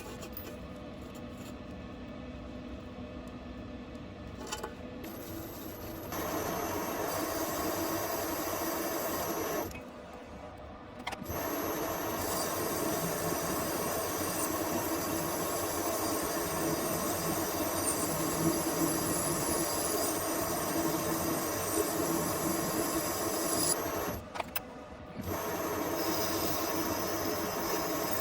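Electric machine tool running with a steady whine, in three long spells broken by two short stops, about ten and about twenty-four seconds in.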